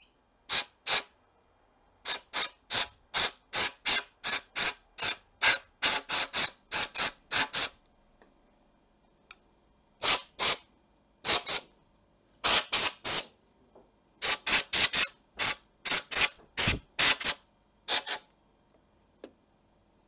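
Compressed-air blow gun giving dozens of short hissing blasts in quick runs, with a pause of about two seconds near the middle, as carburettor parts are blown out before reassembly.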